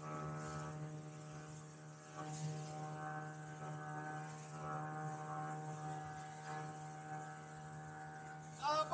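Motorboat engine running at a steady speed, an even, unchanging hum.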